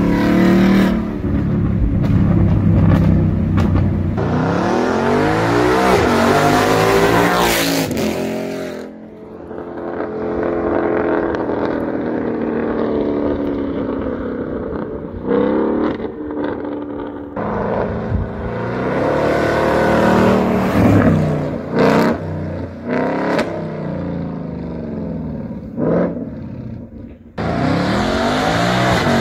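2018+ Ford Mustang GT's 5.0-litre V8 through an ARMYTRIX valved exhaust, run hard: the revs climb steeply and drop away several times, and the car comes past with the engine note swelling and falling off.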